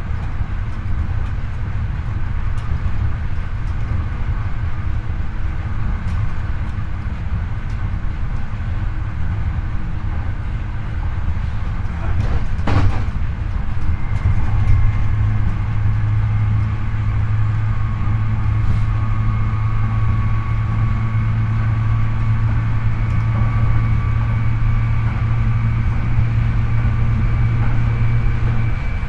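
Hankyu 8300 series electric train running, heard from the floor over its motor bogie: a steady rolling rumble with one sharp knock a little before halfway. Soon after, a steady low hum and a thin, slowly rising whine from the Toyo IGBT-VVVF inverter and induction traction motors set in and hold to the end.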